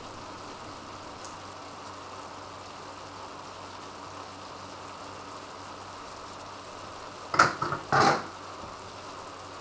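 Sauce of mushrooms and tomato paste simmering in a wok, a steady soft sizzle and bubbling. Two short clatters come near the end, about half a second apart.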